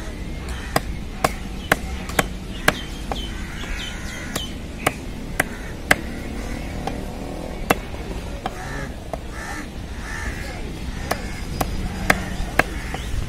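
Heavy knife chopping stingray flesh on a wooden chopping block: sharp chops about two a second, pausing after about six seconds and resuming near the end. Birds call in the background.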